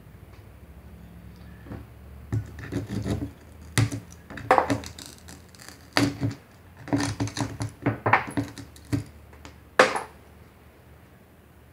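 Old glass being broken out of a stained glass panel with pliers: irregular crunching, snapping and clinking of glass fragments, starting about two seconds in, with the sharpest snap near the end.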